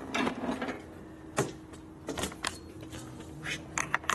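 Scattered metallic clicks and clinks of tools and parts being handled at a motorcycle, over a faint steady hum.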